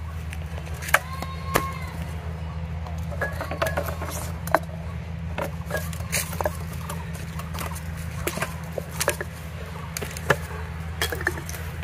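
Small clay pots clicking and knocking as they are handled and set down one by one in a row, scattered sharp taps over a steady low hum.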